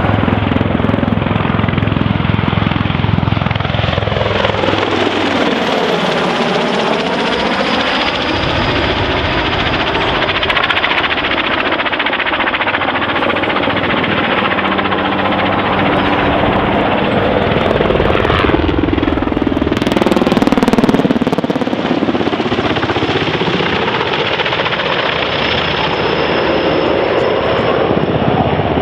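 NH90 twin-turbine military helicopter flying a display, its rotor and turbine noise loud throughout and sweeping down and back up in pitch twice as it passes by.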